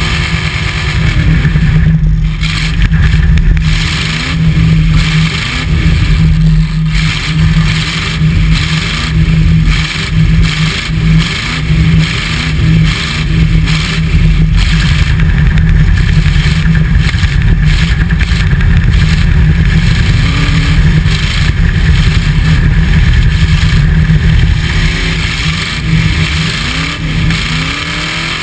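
Demolition-derby pickup's engine, heard from inside the cab, revving hard and continuously, its pitch rising and falling again and again as the stuck truck spins its wheels in a smoky burnout. It eases off slightly near the end.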